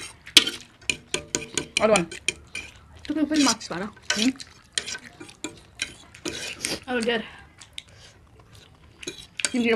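Utensils clinking and scraping against a bowl or plate as food is stirred and eaten, with a quick run of clicks about a second in. Short bits of voices come in between.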